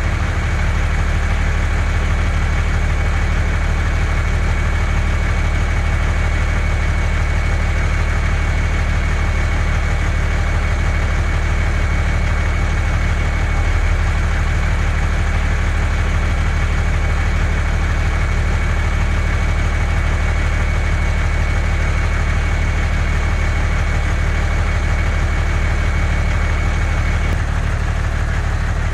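An engine idling steadily, a low even drone with a thin high whine over it that cuts off about a second and a half before the end.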